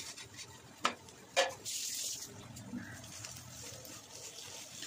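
Boiled noodles tipped from an aluminium colander into a frying pan, the colander knocking twice sharply on the pan about a second in, followed by a short hiss. Then softer rustling as the noodles are stirred with chopsticks.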